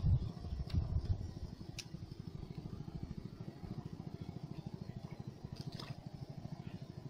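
A small engine running steadily, a low throb pulsing several times a second, with a few faint clicks over it.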